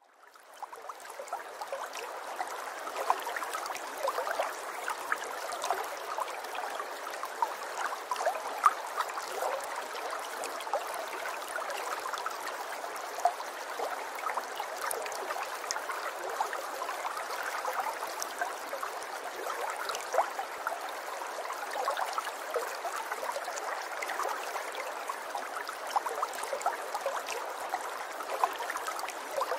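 Steady trickling, babbling noise like running water, dotted with many small clicks and splashes, fading in over the first second.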